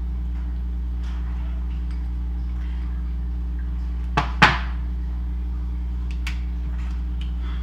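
Two sharp clicks about four seconds in, the second louder, as a plastic measuring spoon and a small glass bowl of minced ginger are handled and put down. A steady low hum runs underneath.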